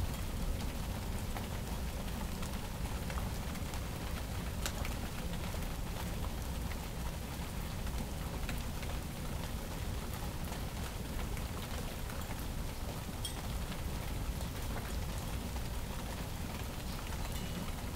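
Steady rain falling during a thunderstorm: an even hiss with scattered drop ticks over a constant low rumble.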